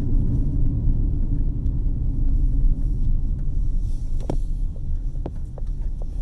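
Steady low rumble of a vehicle driving, heard from inside the cabin, with a few short sharp ticks or rattles around four to five seconds in.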